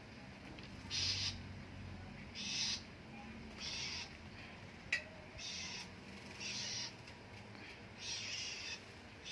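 White-rumped shama splashing and fluttering in its bath water: six short bursts of splashing about a second apart, with one sharp click near the middle.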